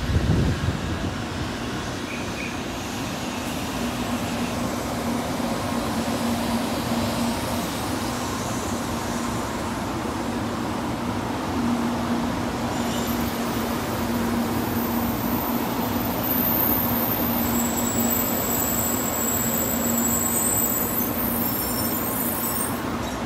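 N700-series Shinkansen rolling slowly alongside the platform as it pulls in to stop: a steady rolling rumble with a low hum, joined about halfway by thin high-pitched whines.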